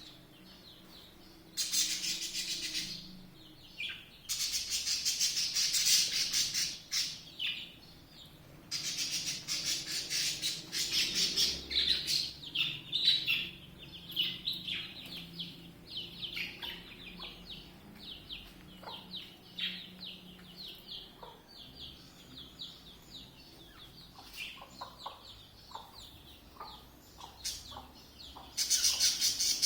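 Small birds chirping in rapid, dense bursts of high chatter. The chirping thins to scattered calls through the middle and swells again near the end.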